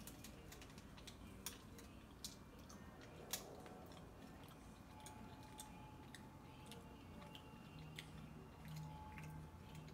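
Faint scattered clicks and crinkles of a snack-bar wrapper being handled, with quiet chewing.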